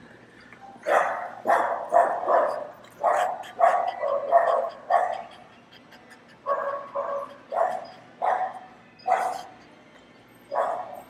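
A dog barking repeatedly, another dog rather than the French bulldog on camera: a quick run of about nine barks, a short pause, then about seven more, spaced half a second to a second apart.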